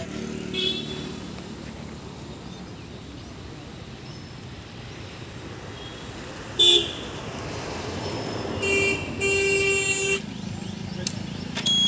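Road vehicle horns honking over steady traffic noise: a brief honk just after the start, a sharp loud toot about two-thirds through, then a short honk and a longer one close together near the end.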